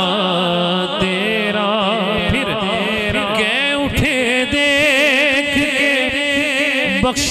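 A man sings a naat through a microphone and PA: long melismatic held notes with a wide, wavering vibrato. A steady low note is held underneath.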